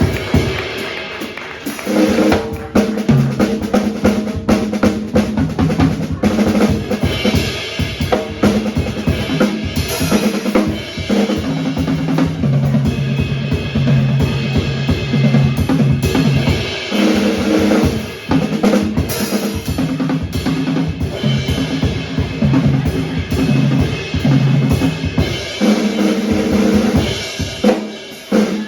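Live jazz quartet playing, with the drum kit to the fore: busy kick, snare and rimshot hits under held notes from the band.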